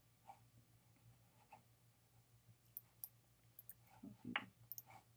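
Faint, scattered clicks of a computer mouse and keyboard over a low steady hum, with a short faint sound about four seconds in.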